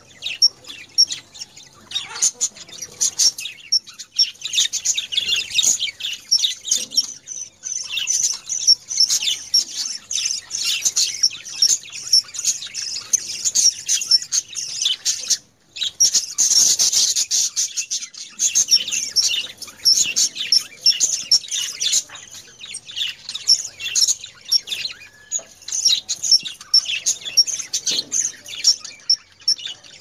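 Budgerigars chattering: a continuous, fast run of high chirps and warbles, which breaks off for a moment about halfway.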